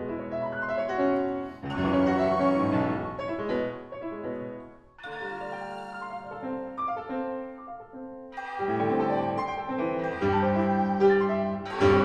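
Grand piano played solo in a contemporary classical piece: phrases of ringing notes and chords, with fresh phrases entering about two and five seconds in. From about eight and a half seconds it grows louder and fuller toward the end.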